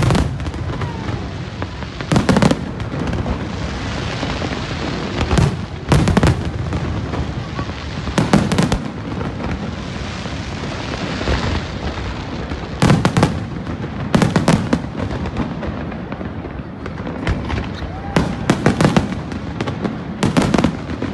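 Fireworks display: a string of loud bangs from bursting aerial shells, coming every one to four seconds and sometimes in quick pairs, over a continuous background din.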